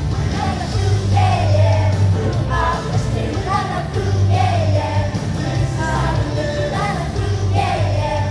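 A pop-style song: a voice singing a melody over a band backing with a steady bass line.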